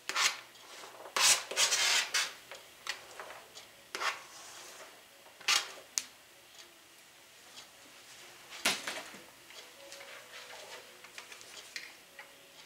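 A metal fork scraping food off a flexible plastic cutting mat and tapping against a plate, in a series of short, sharp scrapes and clicks. The louder strokes come in the first two seconds, again around five and a half seconds in, and near nine seconds, with softer scraping between.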